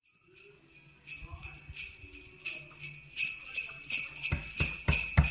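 Brass sleigh bells on a leather strap hung from a door handle jingling, growing louder as the door is shaken. Near the end, about four quick knocks on the door ring through the bells.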